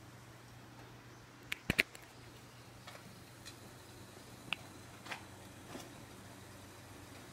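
Lit wood-burning stove ticking and popping: sharp clicks, three in quick succession about one and a half seconds in, then single ones every half second to a second, over a faint steady hum.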